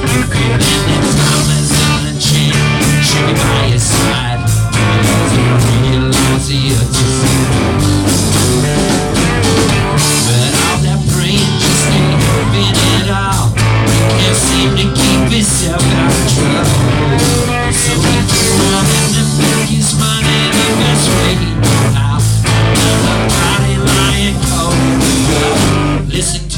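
A live rock band playing an instrumental stretch of a song, with guitar, bass and drums keeping a steady beat. Near the very end the band briefly drops out.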